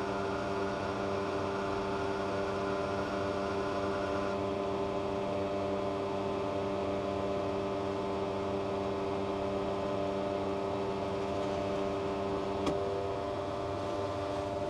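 Petrol pump dispensing 95E10 fuel into a car, its motor and the flowing fuel making a steady hum of several tones. A single click comes near the end, after which the lowest tone of the hum drops out.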